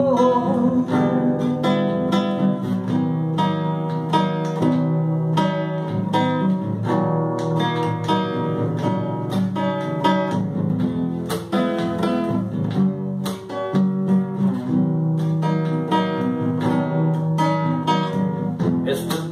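Solo nylon-string acoustic guitar strummed in a steady rhythm, an instrumental passage of chords with no voice over it.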